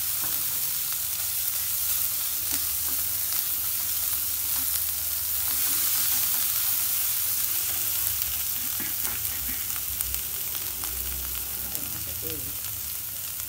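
Chopped onions, ginger, garlic and green chillies sizzling steadily in oil in a pan, stirred and scraped now and then with a wooden spatula.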